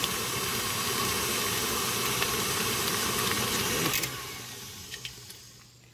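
Electric stand mixer running steadily, its beater churning a bowl of freshly made butter in a stainless steel bowl. About four seconds in the motor's sound drops sharply and dies away over the next two seconds as the mixer is switched off.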